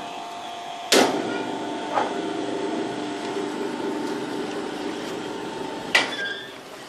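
Marina lock gate machinery running with a steady mechanical hum. It clanks about a second in, as a lower layer of the hum starts, clanks again a second later, and clanks once more near the end, after which the hum drops away.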